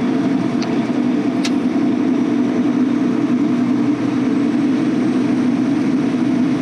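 Semi truck cruising at highway speed, heard from inside the cab: a steady low engine and road drone, with a couple of faint ticks in the first two seconds.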